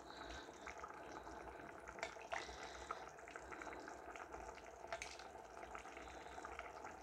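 Faint liquid sounds of a ladle scooping meat juices from a simmering saucepan and pouring them into a plastic jug, with a few light clicks of the ladle against the pan.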